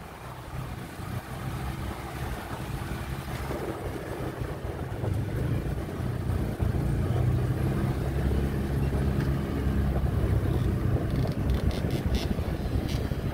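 A motor vehicle's engine running steadily, getting louder through the first half, with a few sharp clicks near the end.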